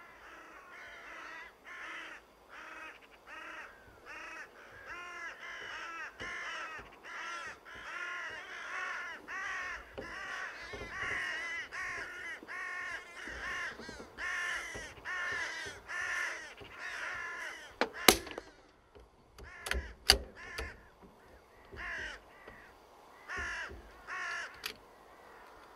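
Carrion crows cawing in a long, fast run of harsh calls, about two a second. Near the end two sharp cracks sound about two seconds apart, the first the loudest, and the cawing thins out after them.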